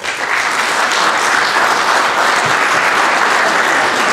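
Audience applauding steadily, starting suddenly at the close of a talk.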